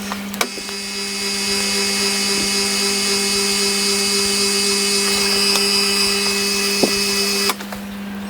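Milling machine spindle running with a boring head fitted: a steady machine whine over a constant low hum. It starts about half a second in and stops near the end.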